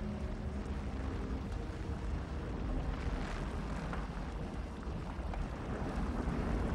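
Volcanic eruption sound: a steady deep rumble with a rushing hiss over it.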